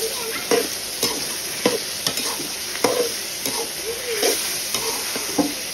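Food sizzling in a cooking pot while it is stirred with a spoon, which knocks and scrapes against the pot irregularly, about twice a second.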